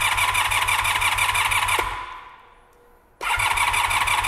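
Honda V45 Interceptor's V4 engine cranking over on its electric starter with a steady rhythmic churn, without catching. It stops about two seconds in, winds down, and cranks again about a second later.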